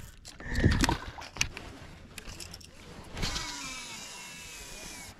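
A fishing reel's spool whirring during a cast, falling in pitch for about two seconds as it slows, after a few clicks and knocks.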